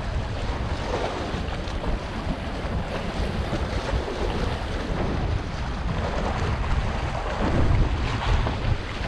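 Wind buffeting the microphone with a steady low rumble, over the wash of choppy sea water.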